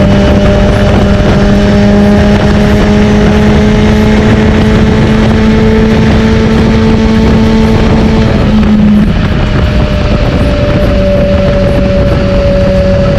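Kawasaki Z H2's supercharged inline-four running through a Bodis aftermarket exhaust. It is held at steady revs with the pitch creeping slowly up, then breaks off briefly about eight seconds in and settles a little lower, over a steady rushing noise.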